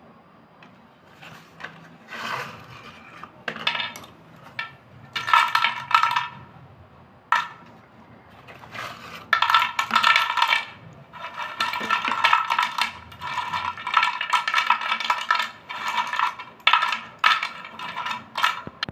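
White slate pencils clinking and clattering against each other and a terracotta clay bowl as they are tipped from their boxes and stirred by hand. The sound comes in repeated spells of bright, ringing clinks, lasting from a moment to several seconds.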